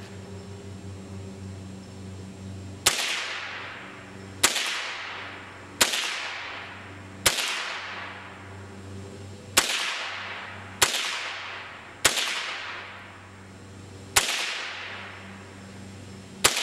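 Ruger 10/22 semi-automatic rifle firing .22 long rifle rounds, nine shots spaced about one to two seconds apart, each crack trailing off in a long echo.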